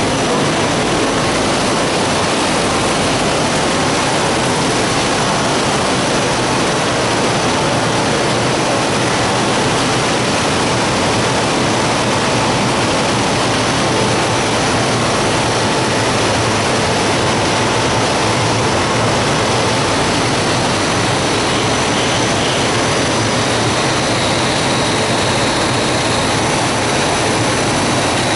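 Rotogravure printing machine for plastic film running: a loud, steady, even rushing noise with faint steady high whines in it.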